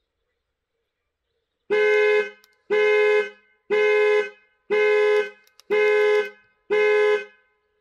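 Volvo XC60's car horn honking six times in a steady pattern, about once a second, starting nearly two seconds in. The honks are set off by the panic button on the remote key fob, the car's alarm for panic or for finding it in a car park.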